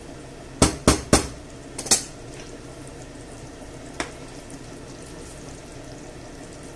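Kitchen utensils knocking: a wooden spatula tapped against the frying pan and set down on a ceramic plate beside a knife, five sharp clacks in the first two seconds, then one lighter tap about four seconds in as a plastic slotted spoon goes into the pan. A low steady simmer of the pork and tomato sauce runs underneath.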